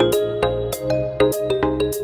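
Background music: an instrumental track of melodic pitched notes over a bass line, with a regular percussive beat.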